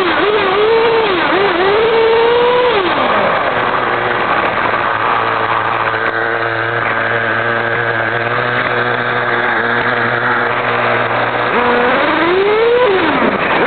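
Kyosho RC car's motor heard from on board, its pitch rising and falling with the throttle for the first few seconds. It then settles to a steady low hum for about eight seconds while the car sits still, and winds up again about twelve seconds in.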